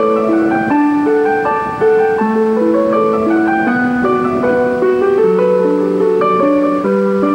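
Piano music: a continuous flow of overlapping, held notes, with no drums.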